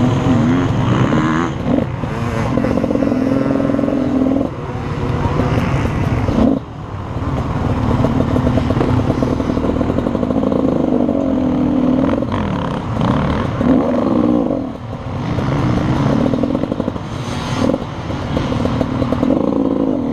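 Beta RR 300 two-stroke enduro motorcycle engine running at low speed, its revs rising and falling again and again as the throttle is blipped.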